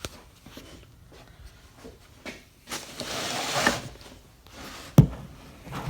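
Workshop handling noises from taking a chainsaw apart: scattered light clicks, a longer rubbing scrape about three seconds in, and a sharp knock about five seconds in.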